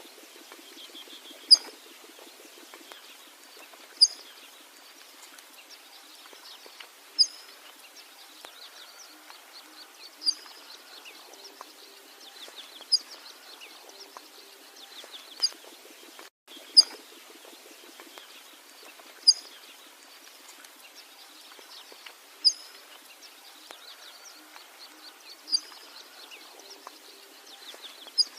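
A bird repeating one short, sharp, high call about every two and a half to three seconds, over a steady background of fainter chirping.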